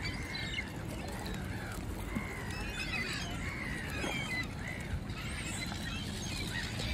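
A flock of gulls calling over and over in short, squealing cries that overlap one another, above a steady low rumble.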